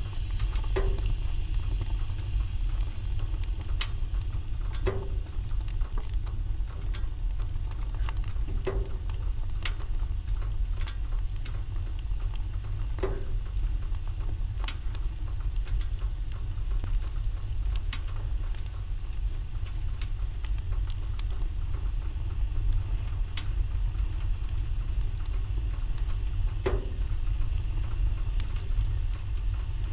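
Wood fire burning in a fireplace, crackling with many small scattered clicks and a few louder pops every several seconds, over a steady low rumble.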